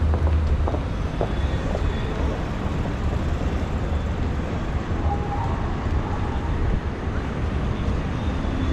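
City street traffic: a steady low rumble of cars and vans passing on the road close by.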